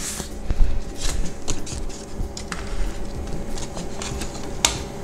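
Plastic instrument-cluster parts being handled and fitted: scattered light clicks, taps and short scrapes, with a few sharper clicks.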